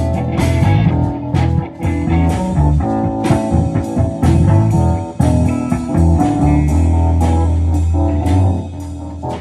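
Live band jam: guitar playing a blues-rock groove over a heavy low bass line and sharp drum-like hits. Near the end the playing thins out to a single held low note.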